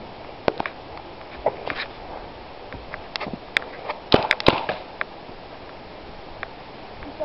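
Paintball marker shots: scattered sharp pops through the woods, with three loud shots in quick succession about four seconds in.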